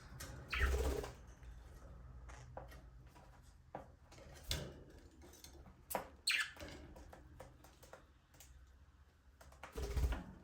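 Budgerigars chirping now and then, in short scattered calls, with a few louder rustling thumps about a second in, near the middle and near the end.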